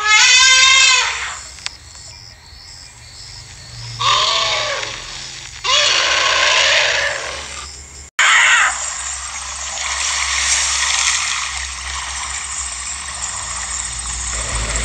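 Loud, wavering animal cries, three of them: one at the start, then two more about four and six seconds in. After an abrupt cut, a steady background noise runs on with no clear calls.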